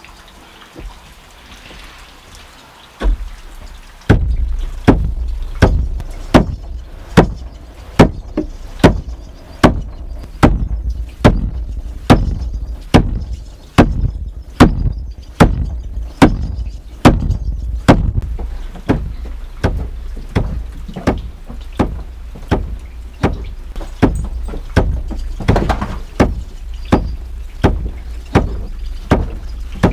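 Wooden plunge churn being worked by hand: the wooden dasher is driven up and down in the barrel, giving a steady run of thumps with a splash after each, about one and a half strokes a second, starting about four seconds in.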